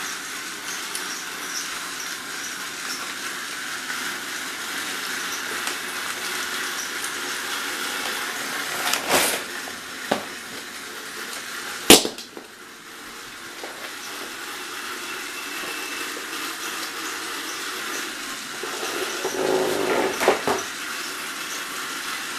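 Toy trains being handled, with a few sharp clicks and knocks, the loudest about twelve seconds in, over a steady background hiss.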